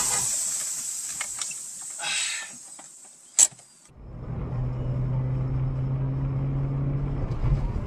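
Car and traffic noise recorded from inside a car: a fading stretch with a single sharp click, then a sudden change to a steady low engine hum with road rumble.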